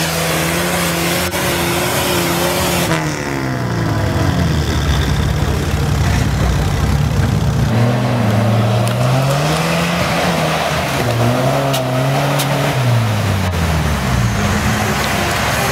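Engine of a UAZ off-road 4x4 revving up and down over and over as it climbs a steep sandy, rutted track, held high for a couple of seconds at a time and then dropping back.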